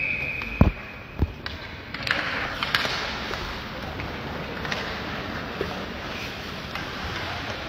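Ice hockey rink sounds: a short high whistle tone at the start fades in the echoing arena, followed by two sharp thuds. About two seconds in, skates scraping the ice and sticks clacking take over as play resumes after the faceoff.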